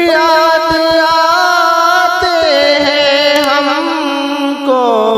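A man singing a long held, wavering note of a naat, Urdu devotional verse sung in a chant-like melody, with the pitch sliding down near the middle and again near the end.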